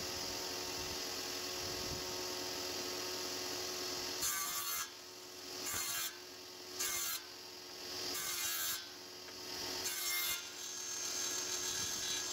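Bench-mounted circular saw running steadily, then cutting through pallet boards: about five short cuts, roughly a second apart, beginning about four seconds in.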